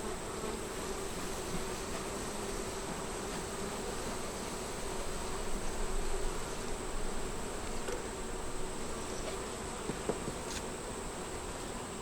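Honey bees buzzing around an opened hive: a steady, many-voiced hum from a crowd of bees on the frames and edges of the box.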